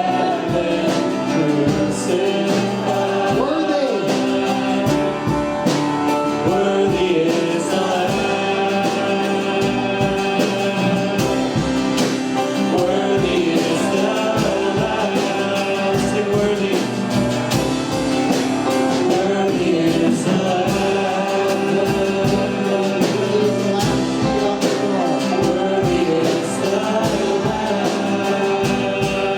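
Worship song: singing over a band of instruments, with a steady beat.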